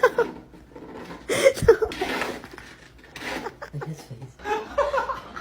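A person laughing in several short bursts of chuckling.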